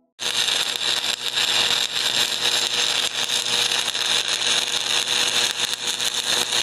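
Electric arc sound effect: a loud, dense crackling buzz that starts abruptly just after the start and keeps going steadily with a faint hum beneath.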